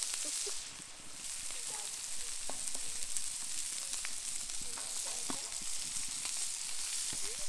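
Steak sizzling on a hot cast iron griddle, a steady frying hiss with a few faint clicks.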